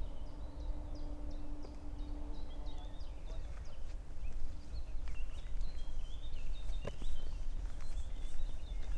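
Songbirds calling in woodland, many short chirps and twitters overlapping, with occasional footsteps crunching on the path and a steady low rumble underneath.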